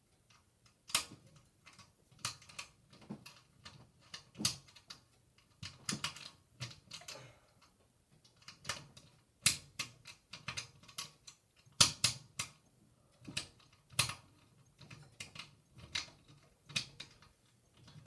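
Screwdriver working the bolts that hold a ceiling fan blade: irregular sharp metal clicks, about one or two a second.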